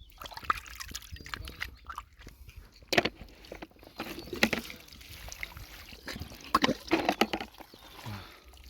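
Shallow lake water sloshing and splashing in irregular bursts as someone works by hand through it picking up snails and clams.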